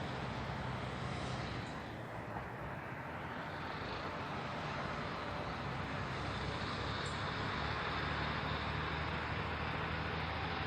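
A steady engine drone with a low hum under a wide, even hiss, easing slightly about two seconds in and then holding level.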